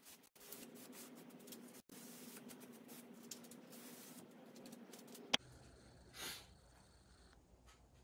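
Faint rubbing of a cloth rag wiped over the finished wood of a cedar chest, broken by a couple of short drop-outs. About five seconds in, a sharp click, then a quieter low hum with a single brief swish.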